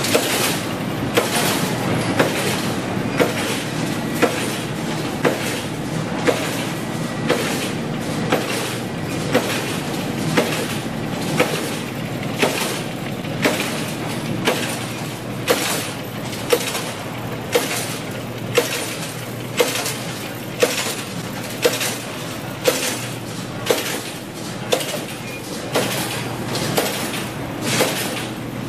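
Wire-fed forming machines running in a factory hall, a sharp metallic clank about once a second from the press stroke over the steady hum of motors and flywheels.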